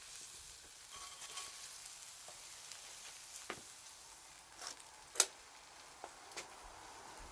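Campfire crackling with a steady sizzling hiss and scattered sharp pops, the loudest about five seconds in.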